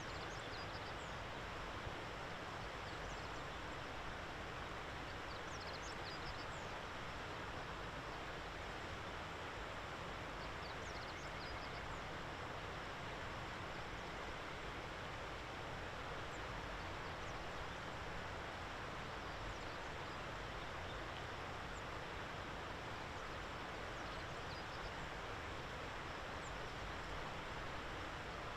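Steady outdoor background noise, with faint, short high bird chirps a few times.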